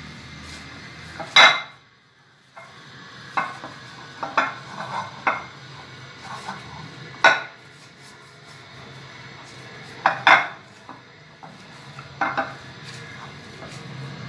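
A glass dish giving sharp, irregular knocks and clacks on a stone counter while dough is kneaded in it by hand, about nine in all, the loudest about a second and a half in and others near seven and ten seconds.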